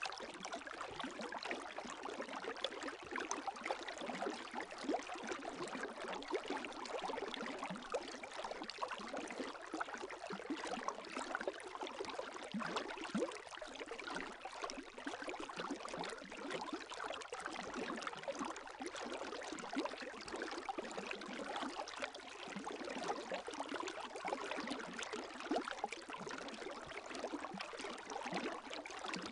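Gentle lake waves lapping at the shore: a steady fine splashing that goes on without pauses.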